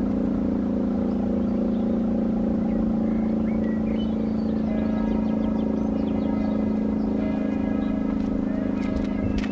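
Old Elektror electric rotary siren with an eight-port rotor sounding a steady tone, holding one low pitch with its overtones and no rise or fall.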